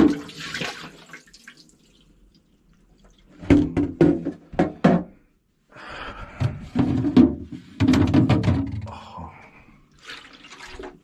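Water splashing and pouring in two bursts, with a few sharp knocks in the first: meltwater from a failed RV fridge being handled during clean-out.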